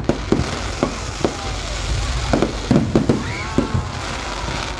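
Aerial fireworks display firing: a rapid, irregular string of bangs and pops as rockets go up and burst.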